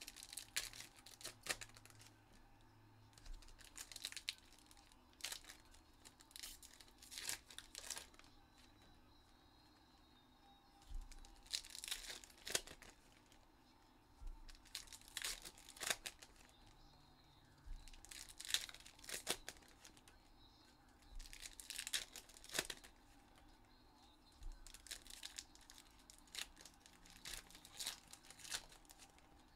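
Foil trading-card pack wrappers being torn open and crinkled, in repeated short crackling bursts with quiet gaps between them, faint.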